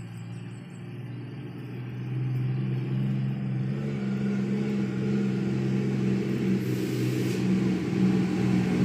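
A motor engine running steadily nearby with a low hum, growing louder over the first three seconds and then holding.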